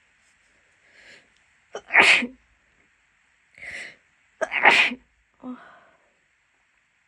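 A woman with a head cold sneezing twice, loud and unstifled, each sneeze preceded by a quieter breath in, with a softer breath just after the second.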